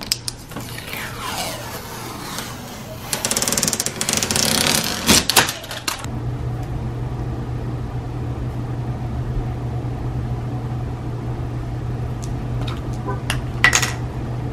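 Protective plastic film being peeled off a TV screen with a fingernail, crackling and tearing for a few seconds. Then a steady low hum, with a few clicks near the end.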